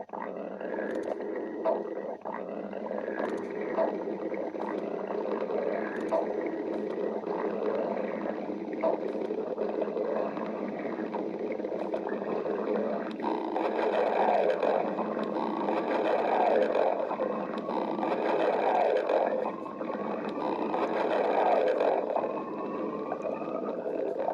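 Stomach growling: a long, continuous rumble with short gurgling pops, turning to slow rising squeals in the second half.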